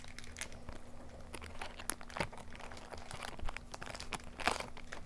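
A foil trading-card booster pack being crinkled and torn open by hand: irregular crackling rustles.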